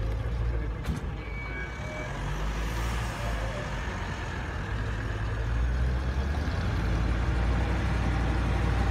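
GAZ-66 army truck's engine running as the truck drives slowly closer on a dirt road, its low hum growing steadily louder. There is a single sharp click about a second in.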